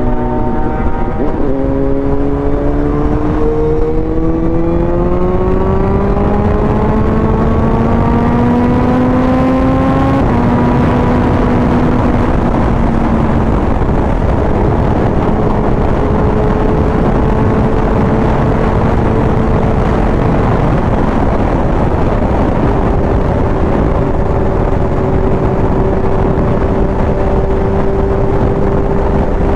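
Motorcycle engine accelerating on the highway, its pitch climbing for several seconds, then dropping as it shifts up about ten seconds in and holding a steady cruise. Heavy wind and road rush run underneath.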